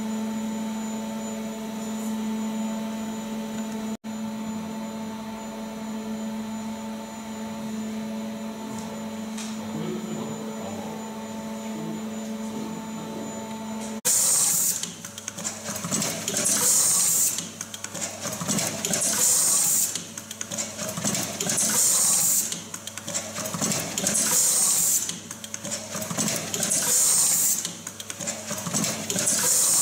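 Fully automatic wire cut, strip and crimp machine (J.A.M. CPR-ZERO-ST-WP) cycling: short bursts of pneumatic air hiss about every two and a half seconds, with mechanical clatter between them, starting about halfway through. Before that, a steady hum with a few held tones.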